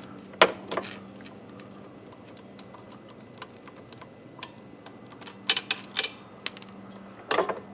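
Scattered metal clicks and taps from hands working a bolt loose on a motorcycle's kickstand bracket. There is a sharp click about half a second in and a cluster of clicks between five and six seconds, over a faint steady hum.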